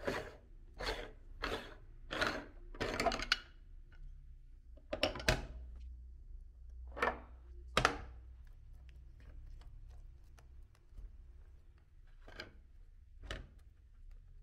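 Electric meat grinder humming low, with a run of short, sharp knocks or squelches, about one every two-thirds of a second for the first few seconds, then scattered ones.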